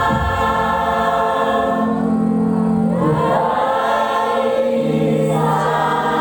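A choir singing, holding long sustained notes in several parts that shift pitch every second or two.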